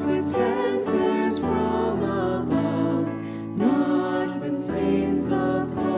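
A slow hymn sung over instrumental accompaniment, with long held notes.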